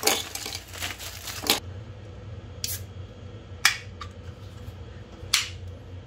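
Ice cubes tipped from a plastic bag, clattering and clinking into a glass tumbler for about the first second and a half. Three brief sharp sounds follow, a second or more apart.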